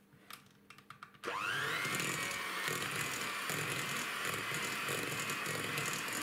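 Electric hand mixer switching on about a second in with a quick rising whine, then running steadily as its beaters work an egg into thick choux pastry dough, and switching off at the end. A few light clicks come just before it starts.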